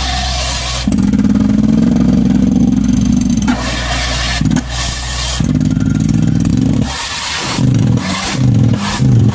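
Truck-mounted borewell drilling rig running hard, its engine note holding in long loud stretches, then swelling and dropping about twice a second near the end.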